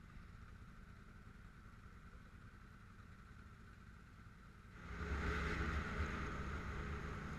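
ATV engine running low and steady, then, about five seconds in, much louder with a rushing noise as the quad rides along.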